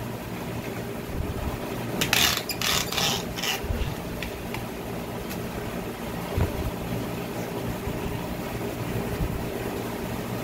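An engine idling steadily with an even hum. A few short clattering knocks come about two to three and a half seconds in.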